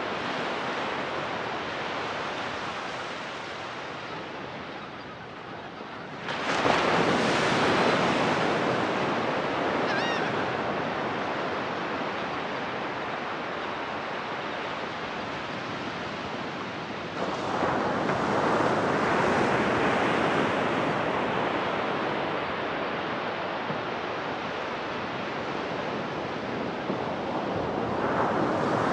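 Ocean surf breaking on a sandy beach: a steady wash of waves, with louder breakers crashing in about six seconds in, again about seventeen seconds in, and near the end.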